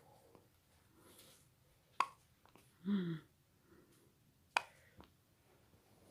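Baby hiccuping: two sharp, short hiccups about two and a half seconds apart, with a brief voice sound in between.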